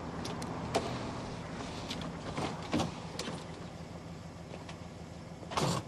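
A car door opening and someone climbing out of the passenger seat: a few short clicks and knocks, then the door shutting with a thud near the end, over a low steady hum from the car.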